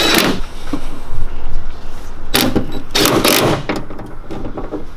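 DeWalt cordless drill with a socket extension running in short bursts as it drives the hood-hinge bolts tight. There is one short burst at the start, and the loudest stretch comes about halfway through.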